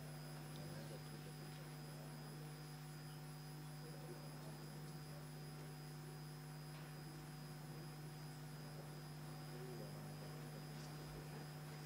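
Low steady electrical hum with a faint high-pitched whine above it, mains hum on the audio feed of a quiet hall.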